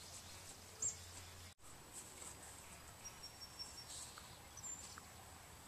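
Quiet outdoor ambience: a low steady hiss with a few faint, short, high bird chirps. The sound drops out for an instant about a second and a half in.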